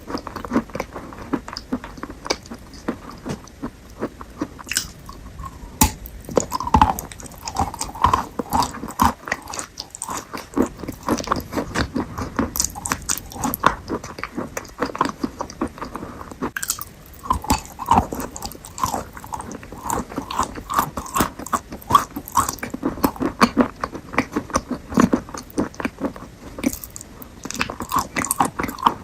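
Close-miked biting and chewing of fruit: rapid, crunchy, wet mouth sounds that run on with brief pauses.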